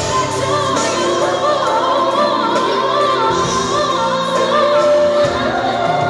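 A woman singing lead live into a microphone, her held notes wavering, backed by a live band with electric guitar and keyboard.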